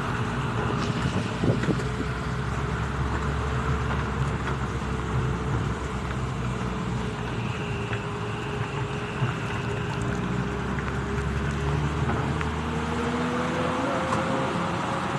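A motor vehicle running steadily with road noise, its engine tone rising slightly near the end.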